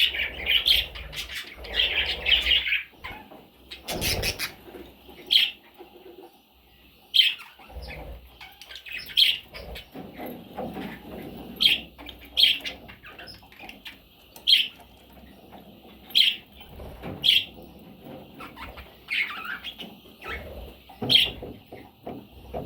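Pet budgerigars chirping: short, sharp calls every second or so, with a burst of busier chatter at the start.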